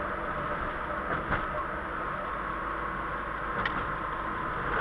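Car being driven on a wet road, heard from inside the cabin: a steady rumble of engine and tyres with a faint steady whine, and two short knocks, one about a second in and one later.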